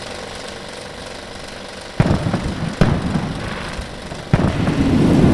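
Fireworks sound effect: three sharp bangs, about two, three and four seconds in, each followed by a rumbling crackle, over a steady low hiss before the first.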